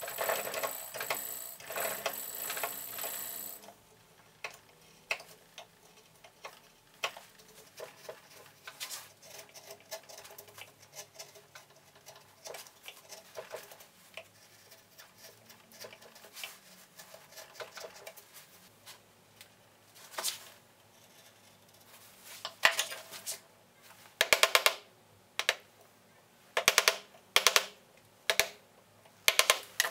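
A hand carving chisel cutting into a block of wood. It begins with a scraping cut of a few seconds, then small scattered clicks as chips come away, and near the end a run of loud, sharp knocks, several in quick succession.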